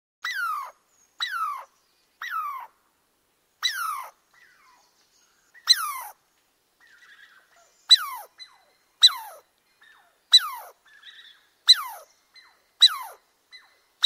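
An animal's short cry repeated about a dozen times, one every second or two: each call slides sharply down in pitch, with the later calls louder.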